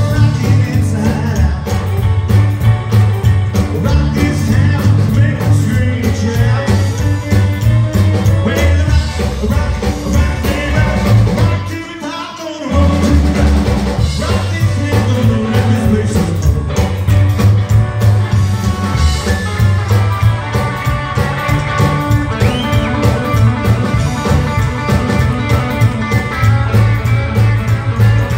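Live rockabilly band playing: upright double bass, hollow-body electric guitar and drum kit, with a man singing. The band stops for a moment about twelve seconds in, then comes back in at full volume.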